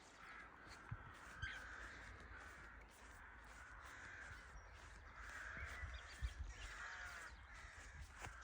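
Cockatiels giving a series of short, harsh calls, roughly one a second, faint.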